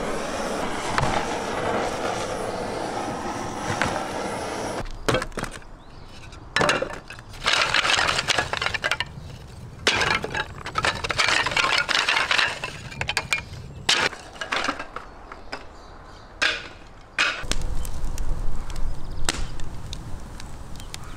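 Gas blowtorch hissing steadily for about the first five seconds. Then thin wooden slats clatter and knock, again and again, as they are dropped onto a kindling fire in an earth pit.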